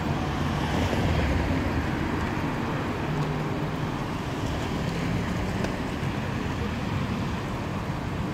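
Steady street traffic rumble from cars and buses at a busy tram junction, with wind on the microphone.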